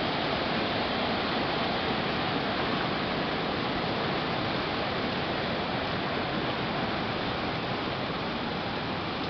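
A creek in flood, swollen with rainwater, its muddy water rushing and churning past the bridge piers in a steady, loud rush.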